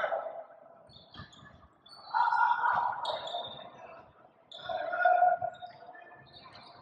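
Basketball shoes squeaking on a gym court: two squeals of about a second each, about two seconds in and again near five seconds, with a shorter one at the start, over faint thuds.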